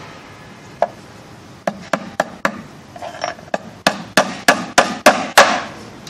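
A hammer driving a nail through a thin gate strip into a wooden bee box: about a dozen sharp strikes, a lone one first, then a quickening run of about three a second that grows louder near the end.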